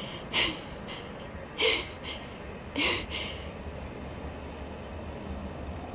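A person breathing hard: three sharp breaths about a second apart, then only a low steady background hum.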